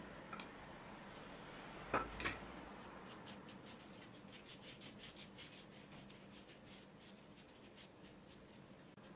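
Red silicone pastry brush spreading melted butter over a thin rolled-out dough sheet: quick, repeated soft strokes. Two sharp knocks come first, about two seconds in.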